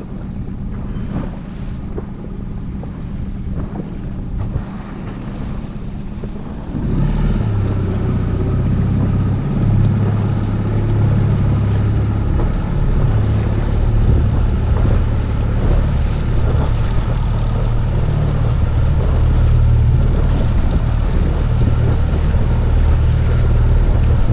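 Outboard motor on a small inflatable boat running at low throttle, then opening up about seven seconds in to a louder, deeper steady drone as the boat gets under way.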